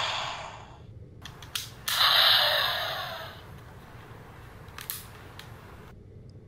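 Plastic clicks and snaps as a DX Dire Wolf Zetsumerise Key toy is fitted together and flipped open, with a short loud hiss-like burst about two seconds in.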